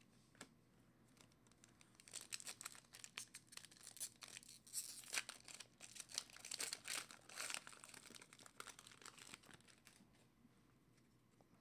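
Foil wrapper of a Panini basketball card pack crinkling and tearing as it is ripped open by hand: a run of short, sharp crackles starting about two seconds in and dying away near the end.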